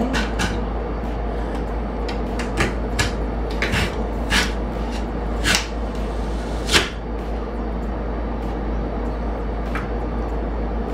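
Stainless steel lever-press French fry cutter clacking as its handle is worked and a potato is pushed down through the two-blade grid: a string of sharp metal clacks and knocks, the loudest about seven seconds in, over a steady low hum.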